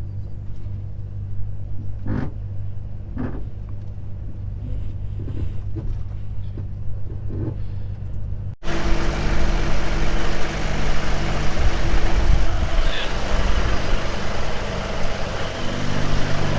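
Truck diesel engine idling, a steady low hum, with a few light knocks. About halfway through the sound cuts abruptly to a louder, noisier steady running, with the engine's hum still underneath.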